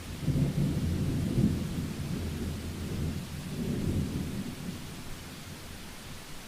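Heavy rain falling with a steady hiss, and a low rumble of thunder that starts at once, swells about a second in and again near four seconds, and dies away before the end.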